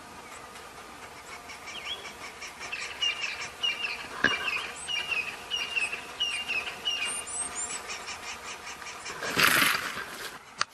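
A bird chirping in a quick series of short rising calls, about two a second, that stops after about seven seconds. A sharp click comes about four seconds in, and a short, loud rustling burst near the end.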